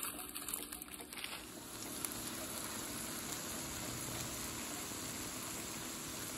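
Food frying in a pan: a few irregular crackles at first, settling about one and a half seconds in into a steady sizzle.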